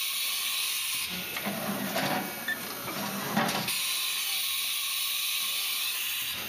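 Haas VF2 vertical machining center's umbrella tool changer cycling through a tool change. A steady hiss for about the first second, then about two and a half seconds of mechanism running with a low hum and several clicks, then another long hiss until just before the end.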